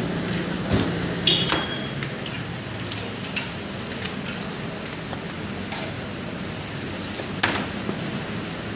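Griddle cooking: scattered clicks and knocks of a metal scraper and a flat bread press against a steel griddle plate, one with a short metallic ring a little over a second in and the sharpest near the end, over a steady low hum.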